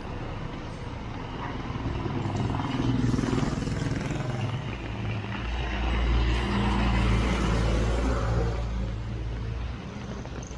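Motor vehicle traffic passing in heavy rain: a steady hiss of rain and wet road. An engine's low hum grows louder through the middle and fades away near the end.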